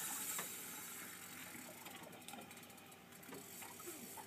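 Fishing reel clicking faintly and irregularly as a hooked fish pulls against the drag, over a steady hiss.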